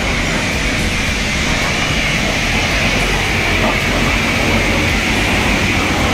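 High-pressure car-wash wand spraying water steadily onto a 4WD and camper trailer.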